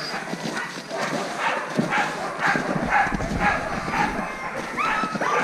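A team of harnessed sled dogs barking and yipping over one another in quick repeated calls, with a rising whine near the end.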